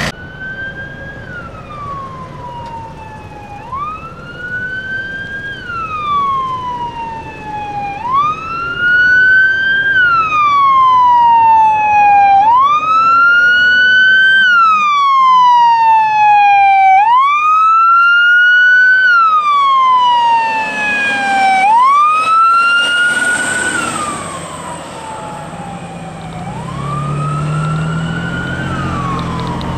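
Fire brush truck's siren wailing in a repeating cycle, a quick rise and a slower fall about every four to five seconds. It is loudest in the middle as the truck passes, then fades, and the truck's engine rumble comes through near the end.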